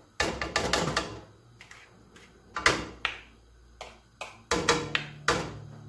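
A spoon knocking and scraping against a nonstick frying pan as rice is stirred in water: a loose series of clicks and short knocks with quiet gaps between them.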